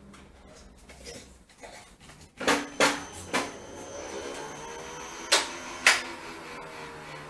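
Sharp hard knocks from an iFetch automatic ball launcher as a dog drops a ball into it and it is fired out: three knocks close together a little over two seconds in, then two more about five and six seconds in.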